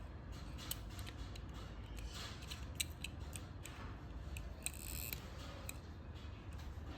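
Scattered light clicks and taps from small toy vehicles and parts being handled, with a brief rustle about five seconds in.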